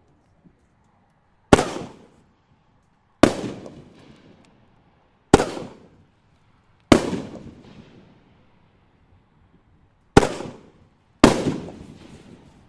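Consumer aerial fireworks bursting overhead: six sharp bangs at uneven intervals, each followed by a fading rumble of echo.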